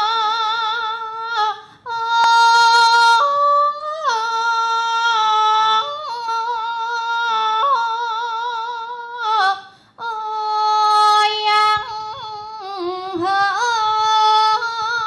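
A woman singing alone in Thai lae style: long held notes with a wide vibrato and sliding ornaments, with two short breaths, one about two seconds in and one near the ten-second mark.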